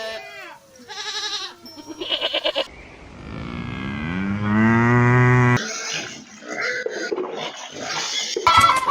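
A cow mooing: one long, low moo that rises and then holds steady, cut off abruptly, the loudest sound here. It is preceded by a few short, quavering animal calls and followed by rougher, noisier animal sounds.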